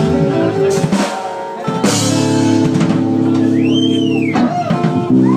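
Live band playing: drum kit and guitar under sustained chords, with a melody line that bends up and back down in pitch about four seconds in.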